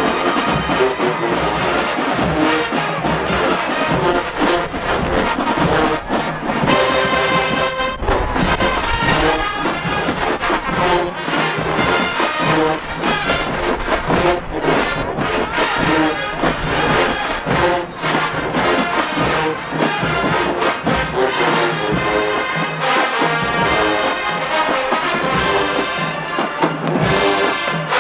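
Marching band brass, trumpets and trombones, playing a loud continuous tune.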